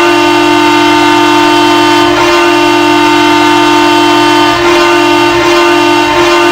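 NHL arena goal horn sounding one long, loud, continuous blast: a steady chord of several deep horn tones.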